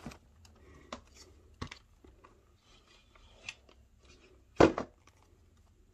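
An eyeshadow palette in its cardboard box being handled and freed from its packaging: scattered light clicks and taps, with one sharp knock about two-thirds of the way in, followed by a smaller one.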